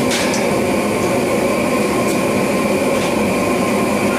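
Steady roar of a gas forge's burner, with a few light metal clicks near the start as the tongs grip and turn the bar in the vise.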